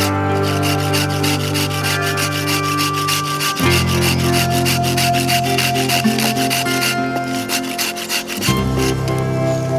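Hand saw cutting back and forth through a piece of wood, a close, rasping run of strokes, under background music with held chords that change twice.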